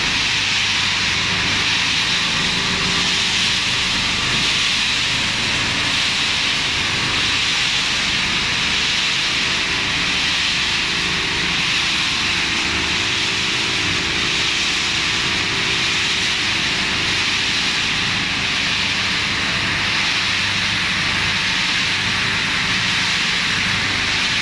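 Hard-plastic washing line machinery running steadily: a loud, even drone of electric motors with a low hum under a strong hiss.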